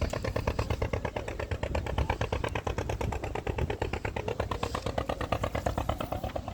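Small boat engine running steadily at a low, even speed, with a rapid, regular chug.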